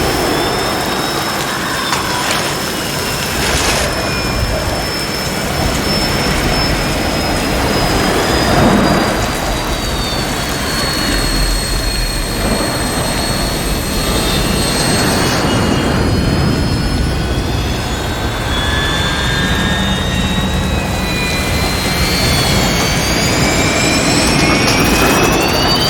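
Jet aircraft engine sound effect: a loud, steady jet roar with several high turbine whines gliding slowly up and down, overlapping one another.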